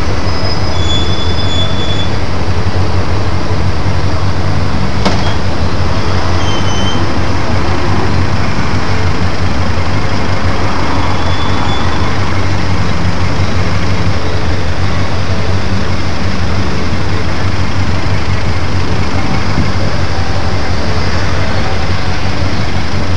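Motorcycle engine running steadily at low revs, heard loud and close through a handlebar-mounted camera's microphone, with a single sharp click about five seconds in.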